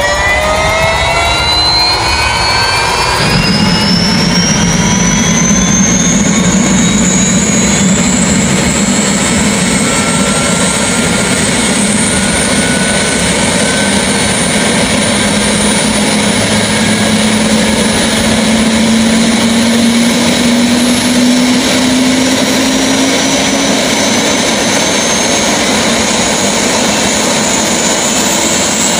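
Bell 206 JetRanger helicopter's Allison 250 turboshaft engine starting up. A turbine whine rises steeply in pitch, a deeper rumble comes in about three seconds in, and then the whine levels off and climbs slowly as the engine spools up.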